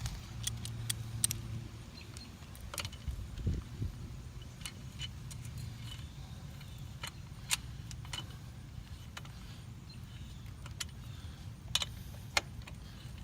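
Scattered light metallic clicks and clinks of an Allen key working a bolt as a 10 mm Bike Master swingarm spool is threaded into a Kawasaki Ninja 250R's swingarm, over a low steady hum.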